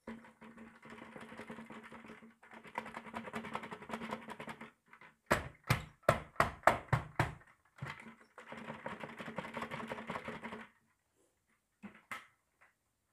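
Crumbly debris pouring and rattling out of a Dyson vacuum's clear bin onto carpet in rustling spells. Midway there is a quick run of about nine sharp knocks, and a few faint clicks near the end.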